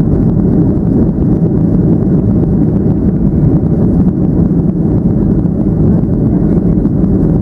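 A Boeing 737-800's CFM56-7B jet engines and the rush of air past the fuselage, heard inside the cabin in the climb after takeoff: a loud, steady, deep drone.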